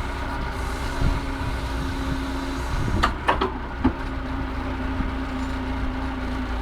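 Massey Ferguson 50HX backhoe loader's diesel engine running steadily, with three or four sharp metallic clanks a little past the middle.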